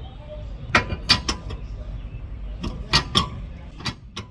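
About eight sharp knocks and clanks of tools and parts being handled during a wheel hub replacement, irregularly spaced in small groups.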